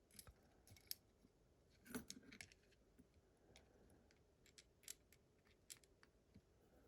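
Faint, scattered clicks of small metal parts being handled: the pins and parts of a disassembled Abus GDS lock. The clicks are sparse and irregular, a little louder about one and two seconds in.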